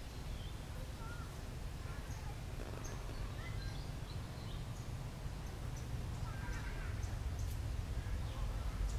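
Outdoor ambience: a steady low rumble of wind on the microphone, growing slightly louder toward the end, with scattered short, high bird chirps and calls.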